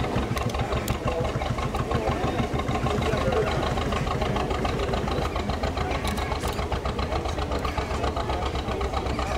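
A historic working narrowboat's diesel engine running slowly under way, with a steady, regular beat.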